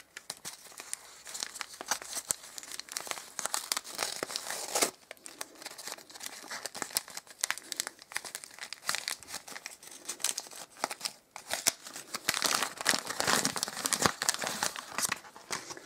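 Shiny wrapping paper and tissue paper being crinkled and torn open by hand, a dense, uneven run of crackles.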